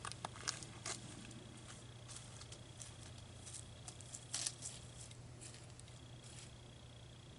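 Faint handling noises: scattered small clicks and rustles, one a little louder about four seconds in, over a low steady hum.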